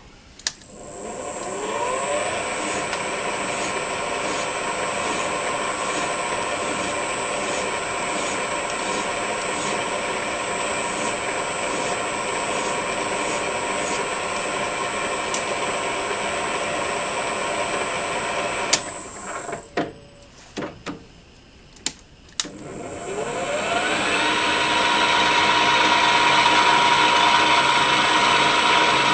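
VFD-driven metal lathe spinning up with a rising whine and running steadily, a file stroked over the turning threaded bolt in faint regular strokes. It stops about two-thirds through with a few clicks, then spins up again and runs louder.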